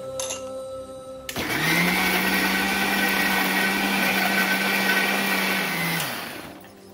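Electric mixer grinder motor starting about a second in and running steadily while it grinds onions, ginger and garlic with a little water into a wet paste. It winds down near the end.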